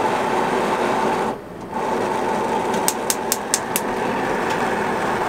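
Propane gas hob being lit: the spark igniter clicks rapidly, about five times a second, for under a second about three seconds in as a second burner is lit, over the steady hiss of gas burning at the lit burner.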